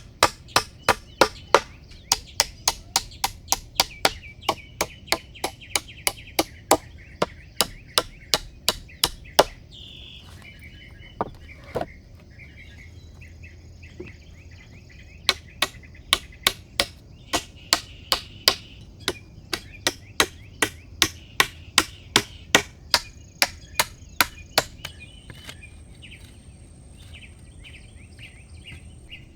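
Quick, regular blows of a hand tool striking wood, about two a second, in two long runs with a pause of a few seconds between them. Small birds chirp in the background.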